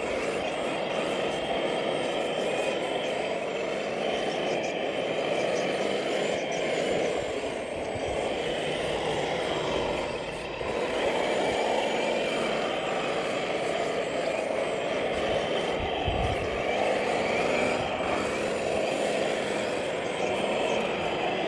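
Radio-controlled wheel loader running steadily as it drives and scoops into a dirt pile. The sound is a continuous mechanical drone, with a short low rumble about sixteen seconds in.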